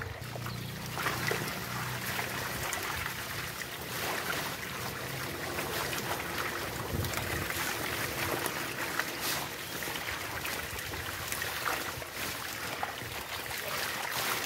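Pond water sloshing and splashing as a seine net is hauled through the shallows, with many small splashes from fish crowded in the net.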